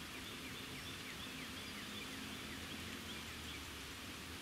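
Steady rainfall, with a bird calling a quick run of short, falling chirps, about three or four a second, that stops a little before the end.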